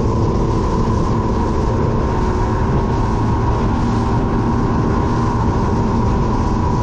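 Bass boat's outboard motor running steadily at cruising speed.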